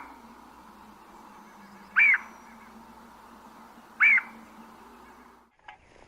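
A short, loud animal call sounds twice, about two seconds apart, over a steady low hum. The hum stops suddenly near the end, followed by a short click.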